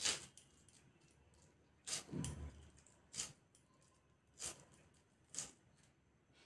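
Vegetable, likely cauliflower, being chopped by hand against a bonti floor blade: about five crisp cuts at uneven intervals, one of them about two seconds in longer and duller, with a low knock.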